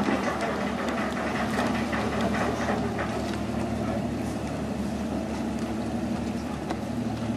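Steady low hum of a superyacht's engines running slowly as she manoeuvres astern into a berth, with some faint clicks over it.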